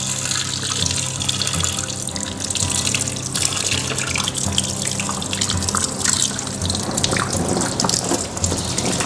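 Water running from a garden hose and splashing over a python's body into the water in a plastic tub as the snake is bathed.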